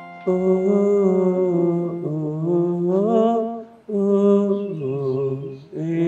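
A single voice slowly singing a lullaby-like melody in long, drawn-out notes, with a brief break just before four seconds in.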